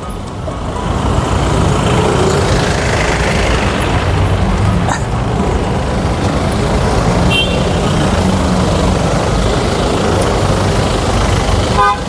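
Road traffic close by: motorcycles, cars and trucks running past in a steady rumble of engines and tyres that swells over the first second.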